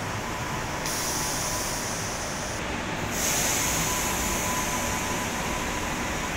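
Madrid Metro train standing at a station platform, giving off a high pneumatic air hiss in two spells: one starting about a second in, then a louder one from about three seconds in.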